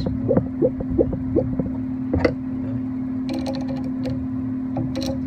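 Hand tools working the carriage gib screws of a 7x10 mini lathe: a run of light regular metal ticks, then a single click, a brief rattle and a loud metallic clank near the end, over a steady low hum.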